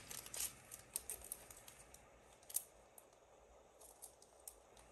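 Near silence with a few faint, scattered clicks and taps of trading cards being handled and set down, the clearest about two and a half seconds in.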